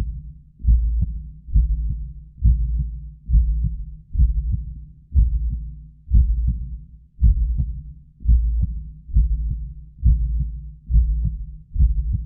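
Human heartbeat, low-pitched beats at a fairly regular rate of about one a second. Each beat starts sharply and fades away before the next.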